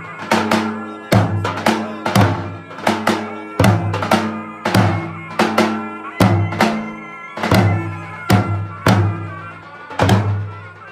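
Traditional Albanian dance music: a large double-headed drum (lodra) beaten in a steady dance rhythm, about two to three strikes a second, under a held melody.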